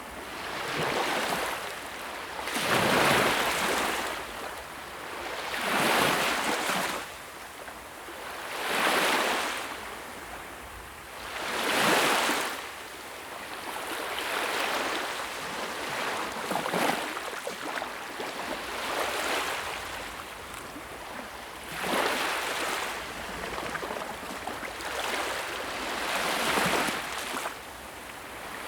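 Sea waves surging and washing in, one swell about every three seconds, with a steadier, lower wash for several seconds in the middle.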